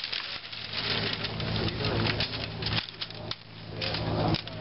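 Hand saw cutting through a wooden log, the blade rasping in the wood.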